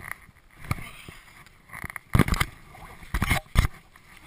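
Handling noise close to the microphone: irregular knocks, scrapes and rustling as a ski pole grip and its strap are handled, with louder bumps about two seconds in and again near three seconds.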